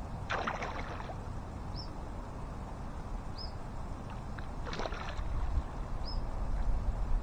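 Splashing as a hooked carp thrashes at the surface while being played to the bank: two short bursts, about half a second in and again near five seconds in, over a steady low wind rumble.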